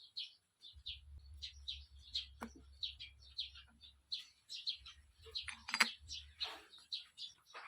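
Small birds chirping over and over in quick short notes, with a couple of sharp clicks or knocks.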